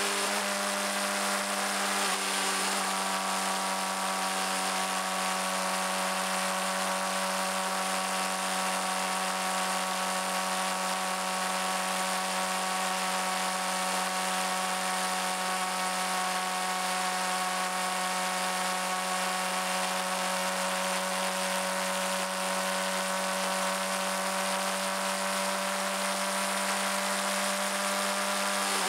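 Suzuki GSX-R600's inline-four engine running at a steady cruise, its pitch dipping slightly about two seconds in and then holding level, under a steady hiss of wind.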